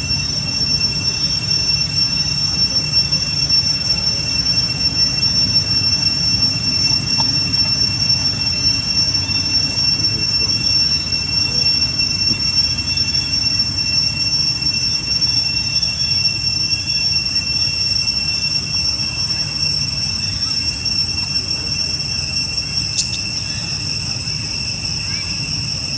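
Steady, high-pitched insect chorus holding several unbroken shrill tones, over a low rumbling background. A single sharp click about 23 seconds in.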